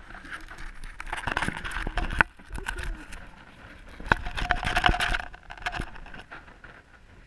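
Hamster right at the microphone, scratching and pawing at the camera and rustling the wood-shaving bedding: close, rapid clicks and scrapes in two spells, the second and louder one about four to six seconds in.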